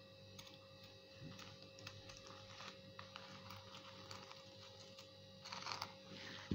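Pinking shears snipping through faux-leather (skai) sheet: a run of faint, irregular clicking snips, with a louder cluster near the end.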